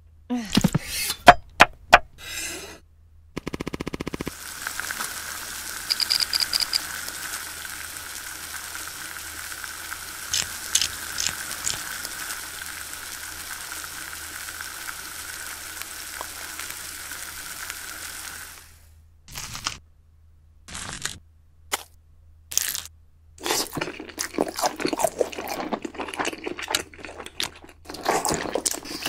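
Frying sizzle from a pan with round hollows, holding steady for about fourteen seconds and then cutting off suddenly a little past the middle. A few sharp knocks come before it, and scattered clicks and rustling follow it.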